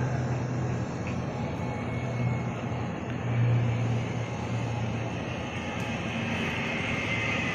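PIA ATR twin-turboprop taking off, its engines at takeoff power heard from afar as a steady drone with a low hum that swells and fades a few times.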